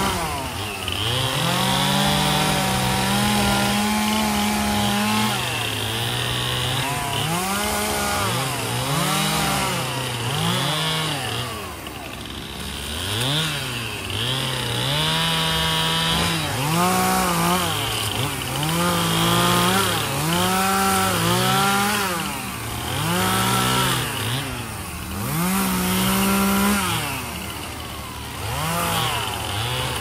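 Gas chainsaws limbing a felled cedar, revving up and falling back over and over as branches are cut, with stretches held at steady high revs in the cut.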